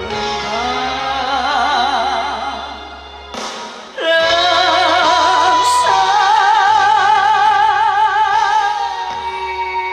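A woman singing a Korean ballad over a backing track, with vibrato. After a short break about three and a half seconds in, she holds one long note for about five seconds, which closes the song.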